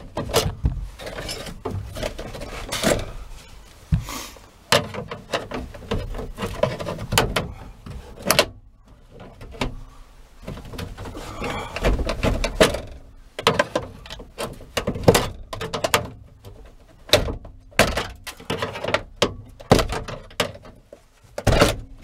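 Plastic cover being pried and wrenched off the latch motor inside a 2004 Toyota 4Runner's liftgate: irregular knocks, clicks and scraping of plastic against sheet metal.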